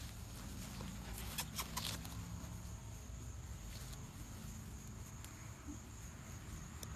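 Pembroke Welsh Corgi puppies moving about: faint patter with a short cluster of clicks and scratches between one and two seconds in, over a steady low hum.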